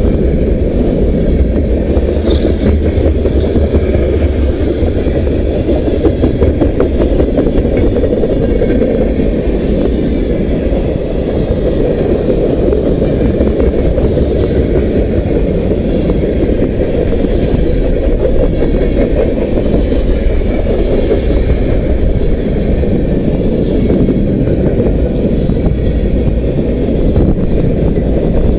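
Union Pacific freight train rolling past at about 32 mph: a steady low rumble of steel wheels on rail, with scattered clicks over the rail joints.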